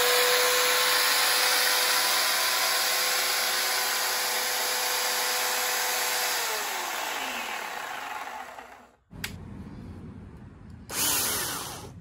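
Cordless electric chainsaw motor running free, not cutting: a steady whine that glides down in pitch about six seconds in as the motor spins down. Near the end comes a second short, louder burst of the saw that falls away.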